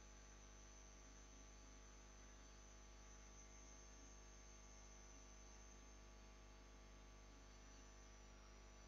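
Near silence: a faint steady electrical hum with a thin, steady high-pitched whine over it.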